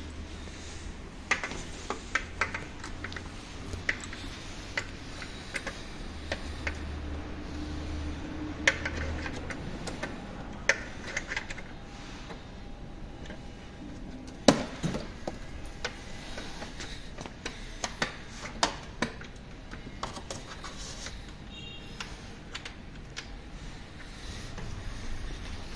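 Scattered metallic clicks and clinks of a 10 mm open-end wrench and bolts against a scooter's front mudguard as the mudguard is fastened on, with one louder clink about halfway through.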